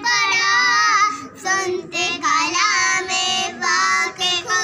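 Young girls singing a melody in phrases of half a second to about a second, with short breaks for breath between them.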